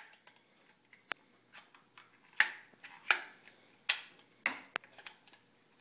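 Several sharp plastic-and-metal clicks at irregular intervals from the collapsible stock of an M4-style airsoft gun being worked on its buffer tube as its release lever is pulled down to take it off.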